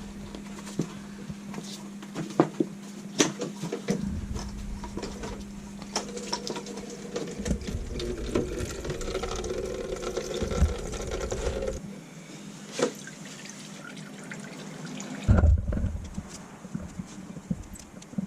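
Engine coolant draining out of the ATV's engine into a bucket: a running trickle and splash of liquid, with scattered light clicks of tools under a steady low hum, and one louder knock about fifteen seconds in.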